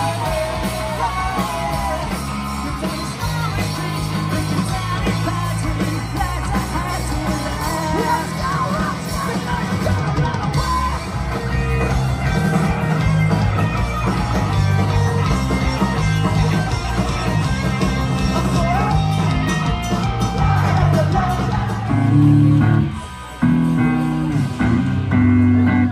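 Punk rock band playing live and loud in a small club: electric guitar, bass and drums with a singer's voice over them. Near the end the music breaks off briefly a few times between hits.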